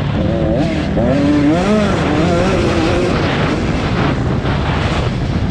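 Engines of several velocross racing motorcycles running hard, their pitch rising and falling as the riders rev and shift.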